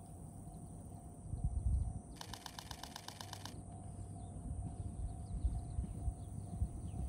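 Outdoor ambience: wind rumbling on the microphone with a gust about a second and a half in, a steady high-pitched drone, and a rapid trilling call lasting about a second, a couple of seconds in.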